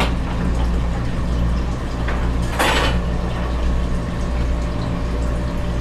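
Steady hum and water noise of a turtle tank's filter pump running, with a short clatter of the worm container being handled about two and a half seconds in.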